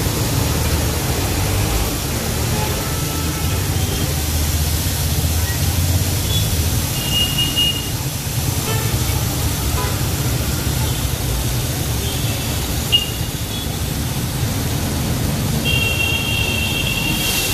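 Steady street-stall background noise: a low rumble with an even hiss over it. A faint high tone sounds briefly a little before halfway and again near the end.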